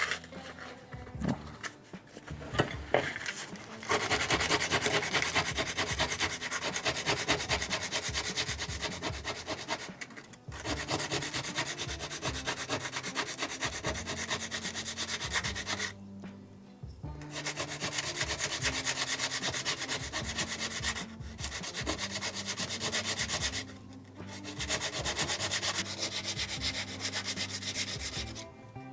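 Sandpaper rubbing by hand on a small turned wooden spindle, in long stretches of fast back-and-forth strokes with a few short pauses.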